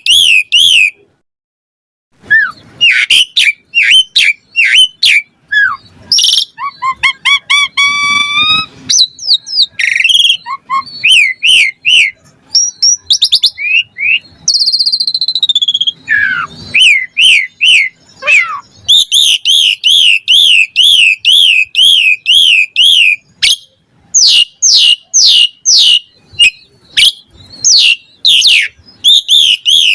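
Asian pied starling (jalak suren) singing loudly: a long, varied song of rapid repeated chirps, gliding whistles and chattering trills, mixed with mimicked calls of other birds. There is a short pause about a second in.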